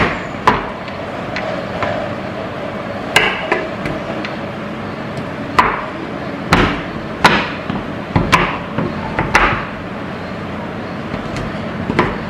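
Chef's knife chopping freezer-chilled chocolate bars into chunks on a wooden cutting board: irregular sharp knocks of the blade striking the board, roughly one a second, with a short lull near the end.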